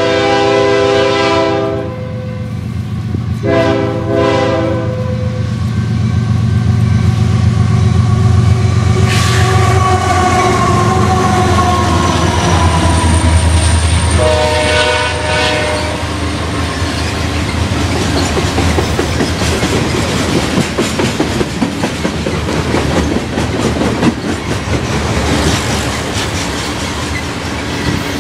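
Freight train passing close by. The diesel locomotives sound their multi-note air horn: a blast ending about two seconds in, a second short blast, and a third about halfway. Their engines rumble past with the pitch falling, then the freight cars roll by with a rattling clickety-clack of wheels over the rails.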